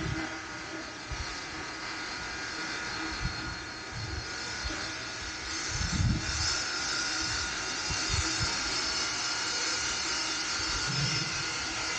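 Steady machinery hum and hiss in a large industrial hall, with several faint steady tones; the hiss grows brighter about halfway through. A few low thumps come and go, the loudest about six seconds in.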